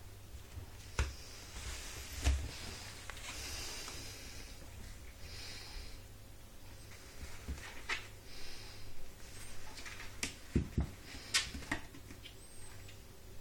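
Soft breaths or sniffs close to the microphone, repeating every couple of seconds, with a few light knocks and taps scattered between them.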